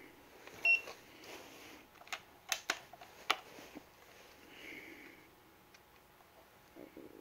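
A few sharp mechanical clicks with light handling noise from the air rifle and trigger pull gauge being readied between trigger-pull tests.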